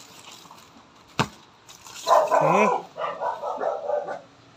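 A dog barking in bursts, with a single sharp click a little over a second in.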